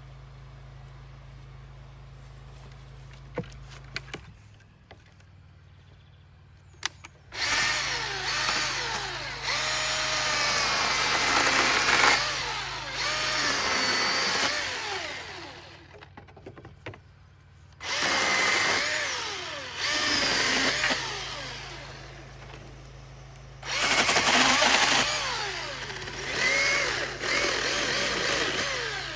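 Cordless Milwaukee M18 chainsaw cutting in three long bursts, its electric motor whine sliding up and down in pitch as the chain loads up in the wood and frees again. A few light clicks come before the first cut.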